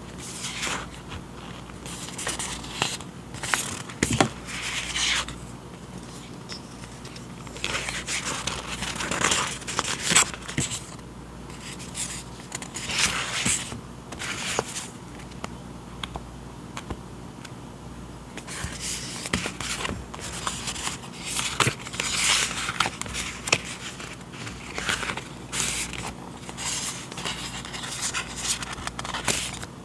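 Paper and plastic packaging of journaling supplies being handled close up: irregular rustling and crinkling with small taps, easing off briefly around the middle.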